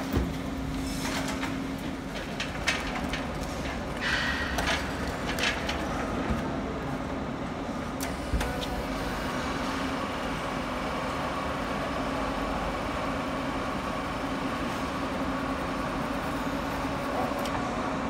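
Scattered knocks and clattering of heavy wooden shipping crates being handled into a truck's cargo box. From about halfway in, these give way to a steady rumbling hum.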